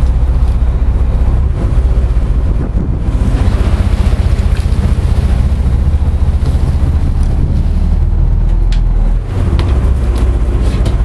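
Sportfishing boat's engines running with a steady low drone, with wind buffeting the microphone and water rushing past the hull. A few short knocks near the end.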